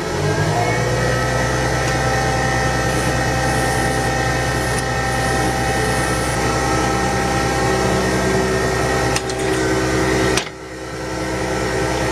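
Small benchtop metal lathe switched on and running at speed, a steady motor hum and whine as the workpiece spins in the chuck. Near the end come a couple of sharp clicks and a sudden drop in level, then the sound builds back up.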